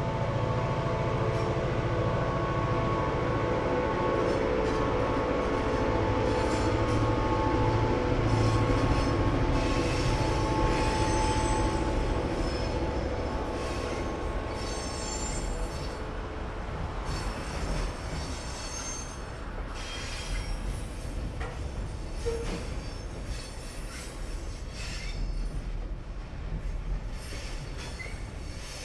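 EMD GP9 diesel locomotive's 16-cylinder 567 engine working hard under load as it pulls a heavy train upgrade, its steady drone easing after about a dozen seconds. Freight cars then roll across a steel girder bridge with squealing wheel flanges and clattering.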